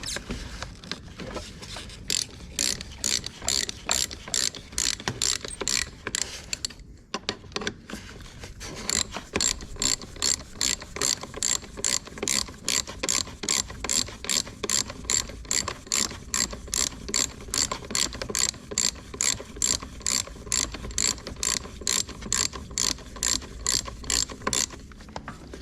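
Hand ratchet wrench clicking steadily as it is worked back and forth on the steering shaft bushing bolts, about three clicks a second. There is a short break about seven seconds in.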